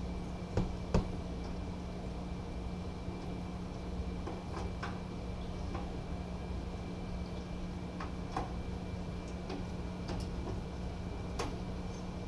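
A long light tube clicking and knocking against the enclosure's light fixture as it is fitted into place: two sharper knocks about half a second and a second in, then scattered light ticks, over a steady low hum.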